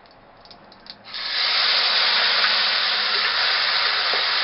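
Chopped tomatoes sizzling as they hit hot oil and cumin seeds in a kadhai: a few faint clicks, then about a second in a sudden loud hiss that keeps up steadily while they are stirred.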